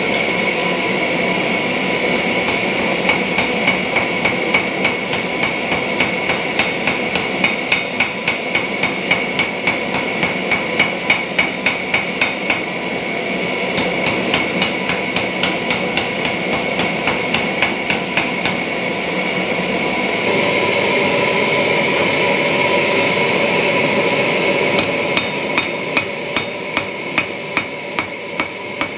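Hand hammer striking a glowing steel-and-copper Cu Mai damascus billet on a steel anvil in a steady rhythm of about two to three blows a second: the hand forge-welding of the stacked layers. The forge runs steadily behind the blows.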